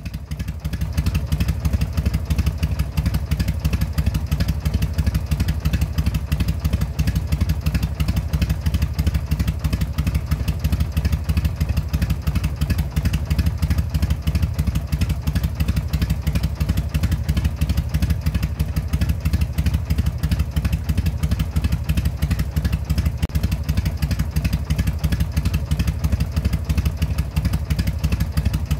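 Motorcycle engine running steadily, a fast even pulsing with no change in speed, fading up over the first second.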